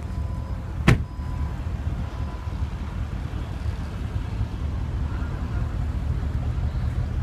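Porsche Panamera tailgate rising open, with one sharp click about a second in over a steady low rumble.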